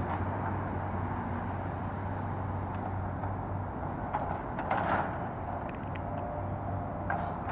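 Tracked hydraulic excavator tearing down a house: a steady engine drone under scattered crunches and clatter of breaking debris, the loudest crash just before five seconds in.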